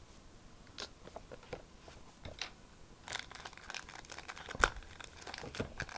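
Crinkly packaging being handled, with scattered small clicks and rustles that grow busier about halfway through and a sharper tap about two-thirds of the way in.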